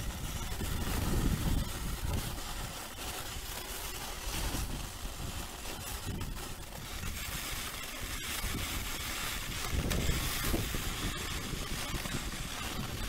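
A sled sliding fast over snow, with a steady scraping hiss from the runners and wind buffeting the microphone in low gusts.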